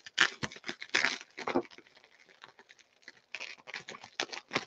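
Plastic bubble wrap being handled, crinkling and crackling in irregular bursts, with a short lull in the middle.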